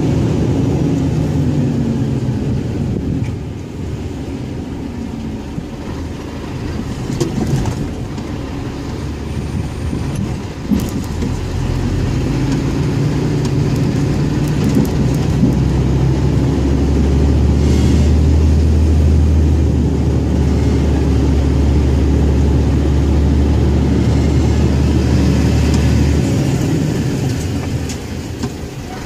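Diesel engine of a Scania 114G 340 truck running, its note shifting and easing in the first few seconds. A few sharp clicks come a little before the halfway point. Through most of the second half it runs steadily with a heavier, deeper note, easing off near the end.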